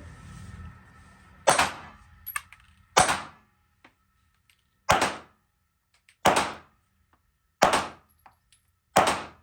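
Six gunshots fired one at a time at a steady pace, about one every second and a half, each a sharp crack with a short decay.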